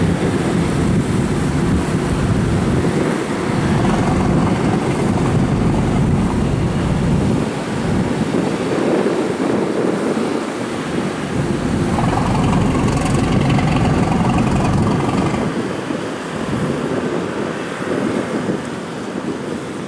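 Superdong II high-speed passenger ferry's engines running as it moves through the water, with water churning and wind buffeting the microphone. A higher steady whine joins for a few seconds past the middle, and the sound eases off near the end.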